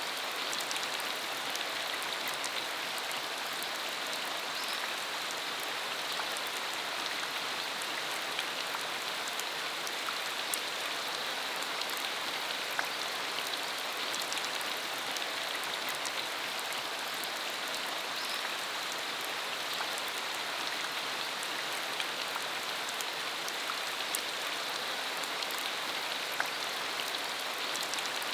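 Steady rain falling on a dirt road: a constant even hiss with scattered sharp ticks of single drops hitting close by.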